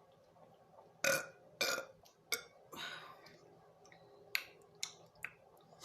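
A woman burping loudly twice in quick succession about a second in, followed by a couple of smaller burps. A few short sharp clicks come near the end.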